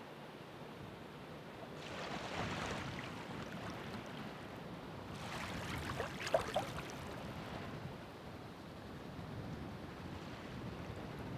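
Ocean waves washing in: a hiss of surf that swells about two seconds in, then a bigger wave around the middle with a few short splashes at its peak, before easing off again.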